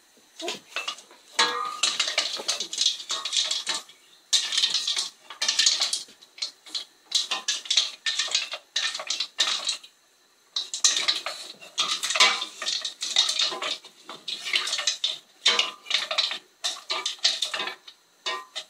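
Stones clattering and scraping against the bottom of a metal saucepan as they are stirred in milk with a wooden spoon, in uneven bursts with a short pause about ten seconds in.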